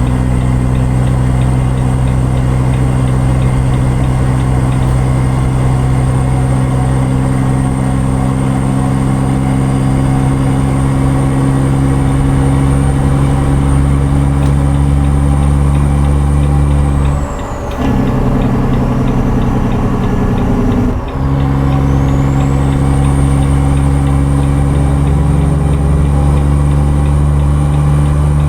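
Truck engine running steadily while driving, with a high whine above it. About 17 seconds in the engine note changes for roughly three seconds while the whine sinks, then both return to the earlier steady note.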